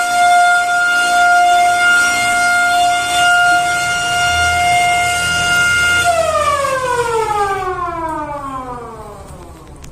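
A mushola's motor-driven 'gaok' siren, the kind sounded to mark the breaking of the fast, holds a steady high wail. About six seconds in it is switched off and winds down, the pitch falling steadily and fading away over the last few seconds.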